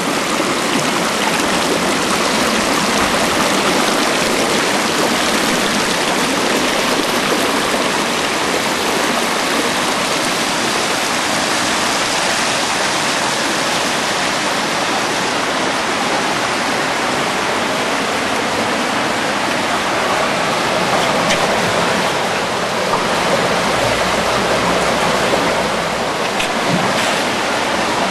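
Creek water rushing and splashing over the ridges of a concrete block-ramp fishway in a box culvert, a steady, loud rush of white water.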